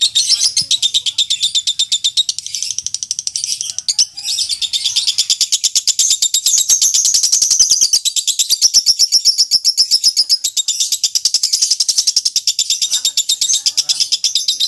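Lovebird ngekek: a long, rapid chattering trill of sharp, high notes, with a brief break about four seconds in. It is the long chatter that keepers play as a lure call to set other lovebirds singing back.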